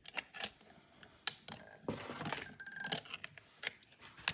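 Buck 119 hunting knife being stropped on a strop charged with 1500 diamond compound: scattered light clicks and short scraping strokes of the blade.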